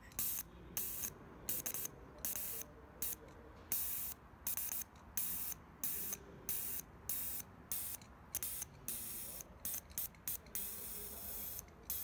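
Fuel injector spraying cleaner in short, irregular hissing bursts, about two a second with some very brief ones, each time a wire is touched to its connector to pulse it open: the injector is being cleaned and spray-tested off the engine.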